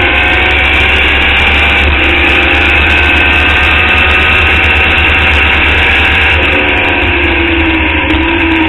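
Open-wheel formula race car's engine pulling at high revs down a straight, heard from the car itself. Its pitch climbs steadily and drops back about twice as it shifts up, over a steady rush of wind and road noise.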